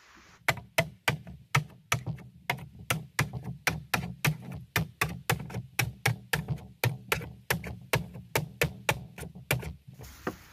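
Machete chopping into a green bamboo pole: quick, even strokes, about three or four a second, each a sharp woody knock.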